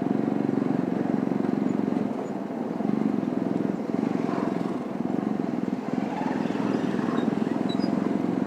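TVS Apache motorcycle engine running steadily while riding, a continuous rapid engine pulse with small swells in level.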